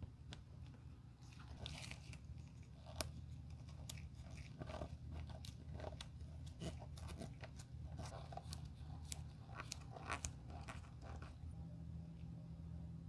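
A metal pick and gloved fingers picking and scraping at the torn, worn heel of a driving loafer, giving an irregular run of small crunchy clicks and crackles that stop about a second and a half before the end.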